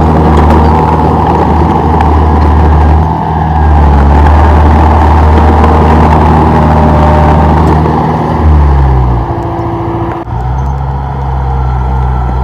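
Komatsu D31P bulldozer's diesel engine running steadily under load; about eight and a half seconds in the engine note falls and settles at a lower, steady pitch.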